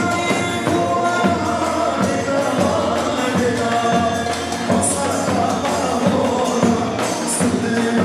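Albanian folk dance music with a steady drum beat, a sustained melody and singing over it, and a few bright jingling hits.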